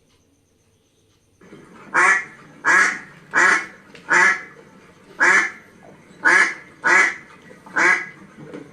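A duck quacking, eight loud quacks in a row at a little under a second apart, starting about two seconds in.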